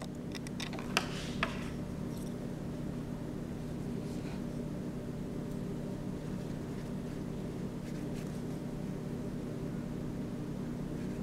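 Faint strokes of a paintbrush on paper, with two sharp clicks about a second in, over a steady low hum.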